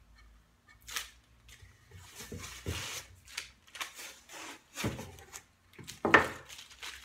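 Blue painter's tape being peeled and unwound from a glued wooden hexagon frame, ripping and rasping in irregular pulls, with knocks of the wood frame against the workbench. The loudest knock comes about six seconds in, as the frame is set down.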